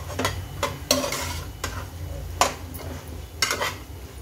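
Metal ladle stirring a thick onion-tomato masala in a pressure cooker, scraping and knocking against the pot in irregular strokes, about one or two a second.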